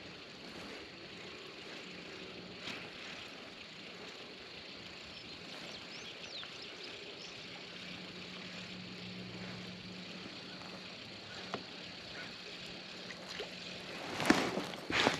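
Spinning reel being cranked to retrieve a lure, faint against a steady outdoor background. Near the end there is a burst of louder clicks and water sounds as the lure comes up out of the water to the rod tip.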